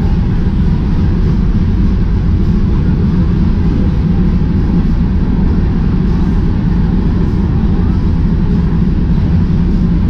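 A steady low rumble that holds an even level throughout, with no distinct events standing out.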